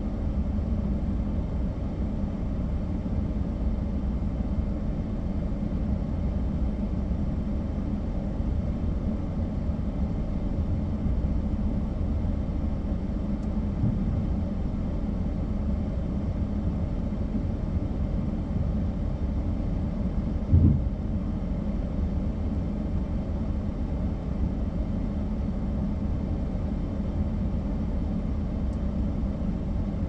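Pickup truck engine idling steadily, heard from inside the cab, with a single thump about twenty seconds in.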